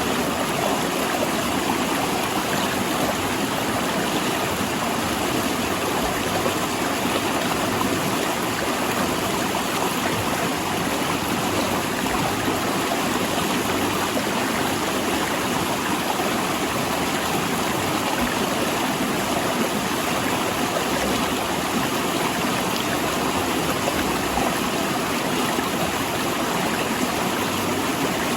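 Mountain river rushing steadily between large rocks, a constant even rush of water.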